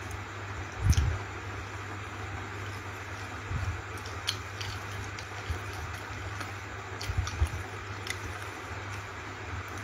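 Steady low hum and hiss of room tone picked up by a handheld phone's microphone, with a few soft low thumps and light clicks from the phone being handled, the loudest thump about a second in and another pair around seven seconds in.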